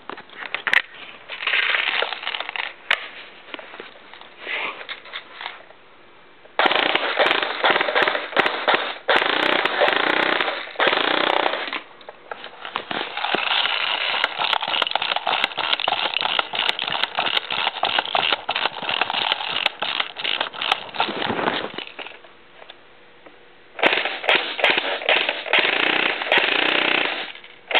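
Tokyo Marui P90 airsoft electric gun firing on full auto at a high rate of fire, in several long bursts with short pauses between them. The longest burst runs about ten seconds. It is a test fire of the gun just after a repair.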